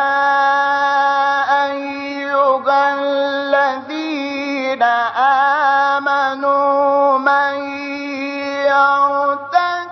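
A male Quran reciter's voice chants long, drawn-out melodic phrases with ornamented turns in maqam Nahawand, broken by a few short pauses for breath.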